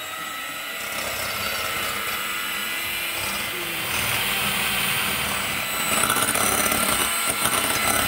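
Proctor Silex electric hand mixer running steadily, its beaters whipping heavy cream in a glass bowl toward stiff whipped-cream consistency. The motor gets a little louder about six seconds in.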